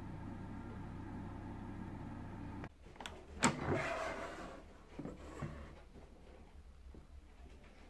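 Air fryer's fan running with a steady hum, cutting off abruptly as the basket drawer is pulled open. A sharp plastic clack and a sliding scrape follow as the basket comes out, then a few lighter knocks.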